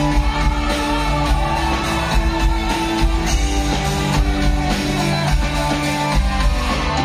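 Live band playing amplified pop-rock: drum kit, bass and electric guitars and keyboard, with a singer's voice over the top.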